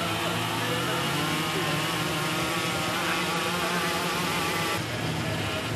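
Several go-kart engines running at high revs at once, their pitch wavering up and down as the drivers work the throttle.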